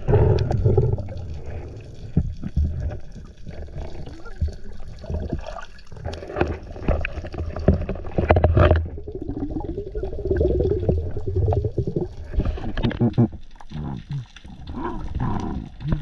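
Muffled water sloshing and gurgling with irregular knocks and rubs, heard through a submerged camera as the spearfisher moves and handles gear in the water.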